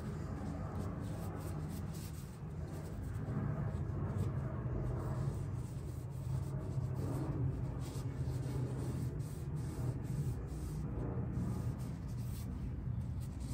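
A paper shop towel rubbing and rustling as it wipes old engine oil off an oil filter housing, with light crinkling of a plastic bag. A steady low hum runs underneath.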